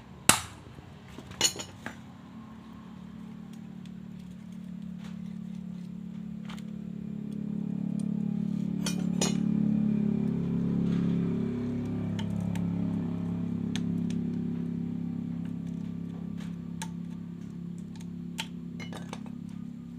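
Small metal parts and tools clinking and tapping while a brush-cutter gear case is worked on, with a few sharp knocks in the first couple of seconds and light ticks later. Under them, a low steady hum swells for several seconds and then eases off.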